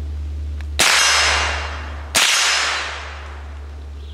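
Two shots from a .22 LR AR-15 fitted with a CMMG bolt conversion, about a second and a half apart. Each shot is followed by a long fading ring and echo as the steel gong about 40 yards off is hit.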